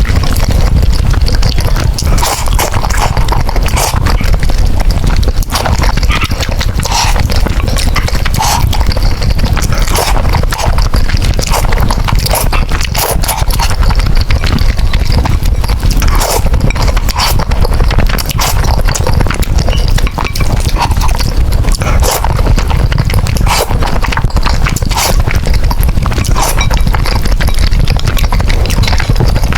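Close-miked eating sounds from a noodle mukbang: wet chewing and lip smacking with frequent sharp mouth clicks, going on steadily.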